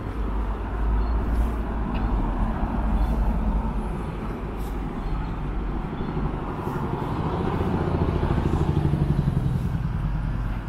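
Road traffic passing at a city intersection: a steady low rumble, with one vehicle's engine note swelling and at its loudest near the end as it drives past close by.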